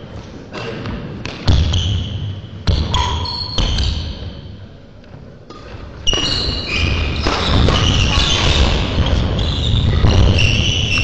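Badminton doubles rally in a sports hall: racket hits on the shuttlecock and players' footsteps on the court. It gets busier and louder from about six seconds in.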